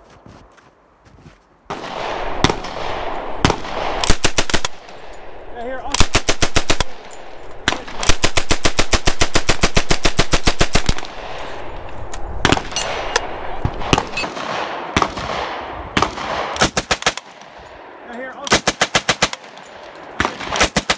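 Full-automatic fire from WWII American submachine guns, a Thompson and then an M3 grease gun, in a run of short bursts and one burst about three seconds long, each shot trailed by echo. The first second or so is quiet before the firing starts.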